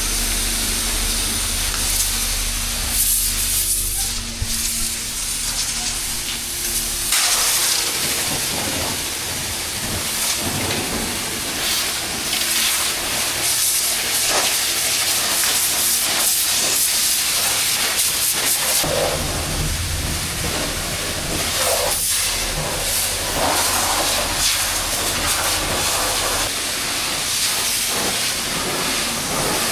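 Water spraying from a hose sprayer onto a mud-caked Jeep body, a steady hiss and spatter. A low steady hum sits under it for the first seven seconds or so and again from about nineteen seconds in.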